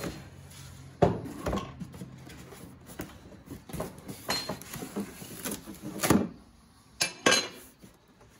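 A boxed electric winch being pulled out of its cardboard box: cardboard flaps scraping and rustling, with several knocks as the heavy unit shifts against the box and bench, the sharpest about a second in and others near six and seven seconds.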